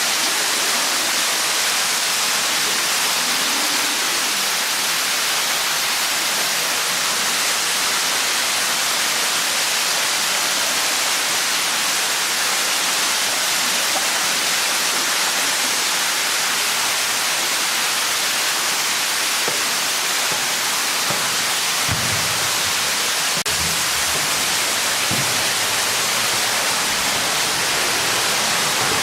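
Underground waterfall inside a limestone cave, a loud, steady rush of falling water, with a few faint low knocks about three quarters of the way through.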